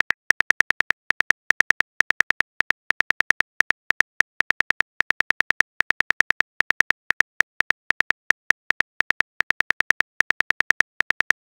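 Keyboard typing click sound effects from a texting-story app, one short sharp click per letter, several a second in uneven bursts as a message is typed out.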